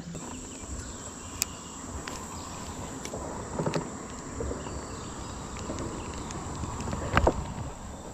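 Insects giving a steady, high-pitched buzz, with a few light clicks and knocks; the loudest knock comes about seven seconds in.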